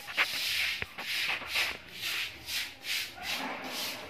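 A hand tool being worked back and forth on the metal of an old welding machine's transformer, making rhythmic rasping strokes about three a second. A couple of sharp clicks come in the first second.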